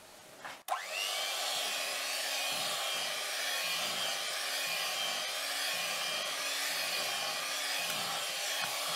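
Electric hand mixer switched on with a click about a second in, its whine rising briefly, then running steadily as the beaters whisk thick cake batter.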